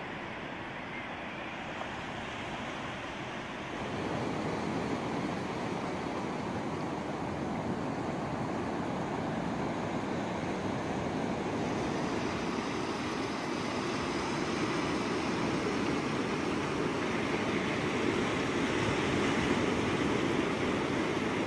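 Surf breaking and washing up a sand and shingle beach: a steady rushing noise that gets louder about four seconds in and keeps building slowly.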